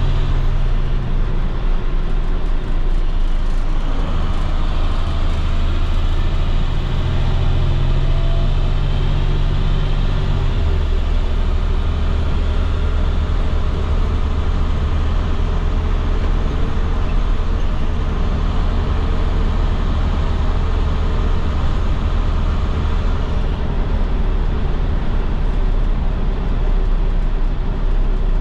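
2010 IC FE school bus being driven, its MaxxForce DT inline-six diesel droning steadily under road noise. The engine note changes about ten seconds in.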